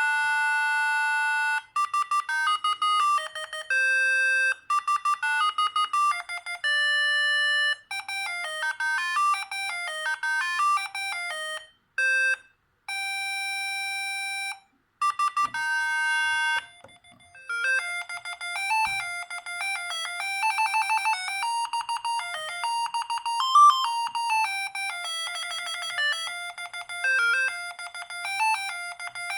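Siemens S45 mobile phone playing its built-in ringtones through its small speaker: short electronic melodies of beeping notes, one tune after another with brief pauses between them, the last one a faster run of quick notes.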